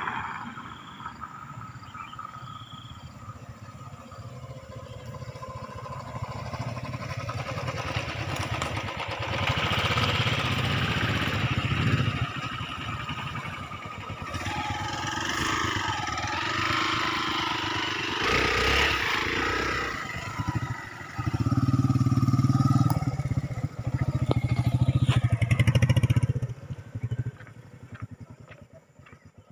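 Several motorcycle engines running and revving, loudest shortly before the end as the bikes pull away, then fading out in the last few seconds.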